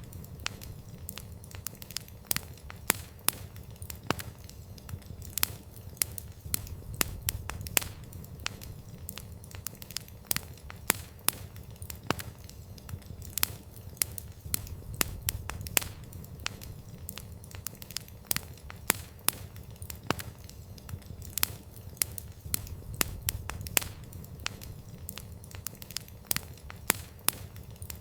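Campfire of burning wood crackling: irregular sharp pops and snaps several times a second over a low steady rumble.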